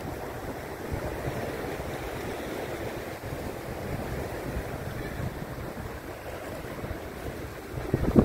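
Small sea waves washing and lapping in the shallows, with wind buffeting the microphone. A brief louder bump near the end.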